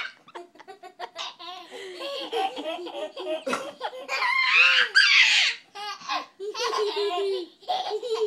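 Baby laughing hard in repeated belly laughs, in short bursts with brief gaps. The longest and loudest run comes about four seconds in.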